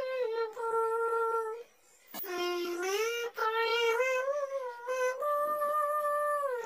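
High, childlike synthetic singing voice singing a sholawat melody in long held notes with a slight waver, breaking off briefly about two seconds in.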